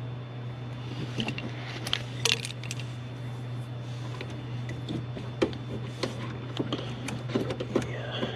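Scattered small metallic clicks and taps of a screwdriver and hand tools working at a dashboard terminal strip, over a steady low hum.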